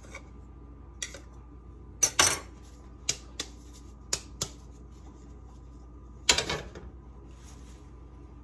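A round metal cake pan and a knife knocking and clattering as a baked cake layer is loosened and turned out of the pan: a series of sharp knocks, several in quick pairs, the loudest about two seconds and about six seconds in.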